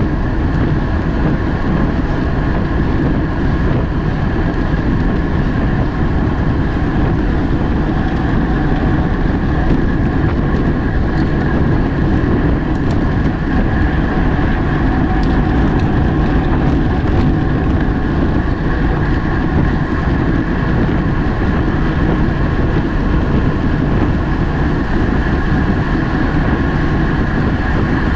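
Steady rush of wind over the microphone of a camera riding on a road bike at race speed, with tyre and drivetrain hum beneath it.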